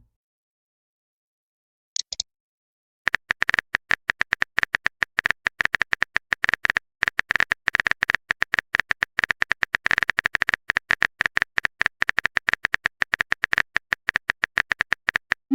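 Rapid, irregular typing clicks, the tapping sound effect of chat messages being typed out, starting about three seconds in after a short high blip near two seconds.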